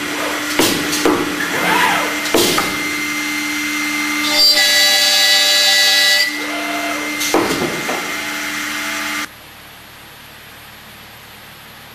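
A CNC vertical boring and routing machine at work: its spindle motors hum steadily while the carriage's axis motors whir up and down in pitch as it moves between positions. About four seconds in, a louder, higher whine with several tones lasts about two seconds as a spindle works the panel. About nine seconds in, the sound drops suddenly to a much quieter steady hum.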